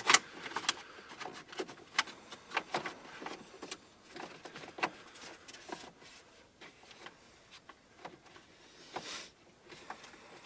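Plastic steering column trim being handled and fitted: scattered light clicks and knocks of plastic parts, with a brief rustle near the end.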